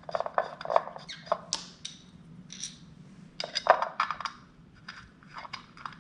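Small metal parts and hand tools clinking and clattering in a string of short, irregular knocks, as bolts and tools are handled during motorcycle driveline reassembly.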